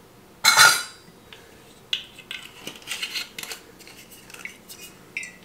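A sharp metallic clatter of kitchenware about half a second in, then a run of small clicks and scrapes as a screw cap is twisted back onto a glass wine bottle.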